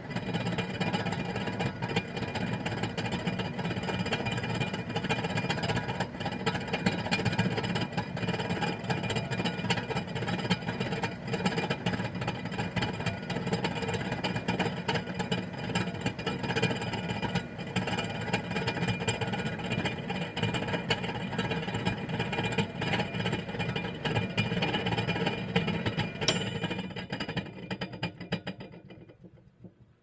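Microwave oven running: a steady hum and whir with a grainy rattle. A few seconds before the end there is a click, and the hum then dies away as the oven shuts off.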